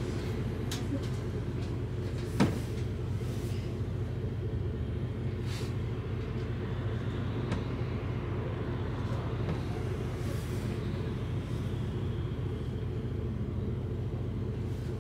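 City bus engine idling with a steady low rumble while the bus stands still, heard from inside the bus. A single sharp click about two and a half seconds in.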